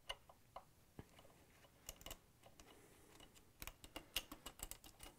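Faint, scattered clicks of a Phillips screwdriver turning out the small screw that holds a stand mixer's trim band, then a quicker run of light clicks as the loosened trim band is handled.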